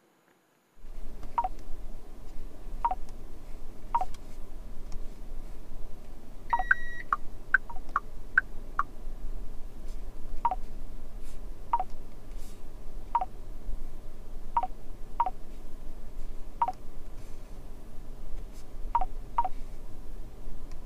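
Car infotainment touchscreen giving a short two-note beep at each tap, at irregular intervals of one to two seconds, with a quicker run of beeps and one longer, higher beep about seven seconds in. A low steady hum lies beneath.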